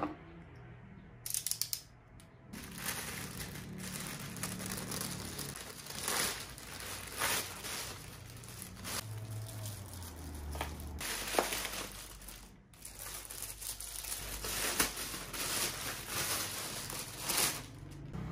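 Plastic poly-mailer bags crinkling and rustling in irregular bursts as parcels are unwrapped and items pulled out.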